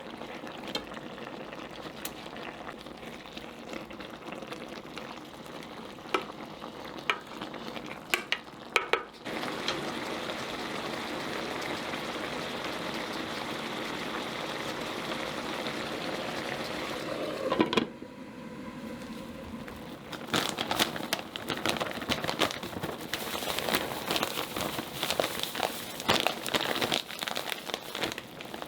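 Dakgalbi sizzling and bubbling in a pan, with a few sharp utensil clicks in the first nine seconds. About eighteen seconds in there is a loud click and the sound drops, then picks up again as an irregular spattering crackle.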